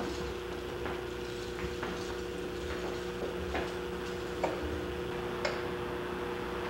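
Electronic sound from a motion-triggered printed-circuit sound sculpture: irregular sharp ticks and clicks, roughly one every half second to a second, over a steady low hum of a few held notes.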